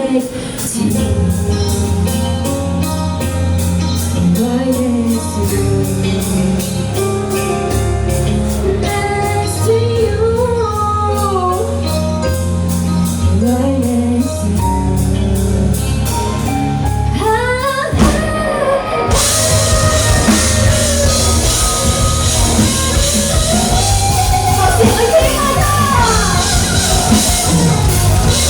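Live rock band playing, a female voice singing over electric guitar, bass and drum kit. About eighteen seconds in the band comes in harder and fuller.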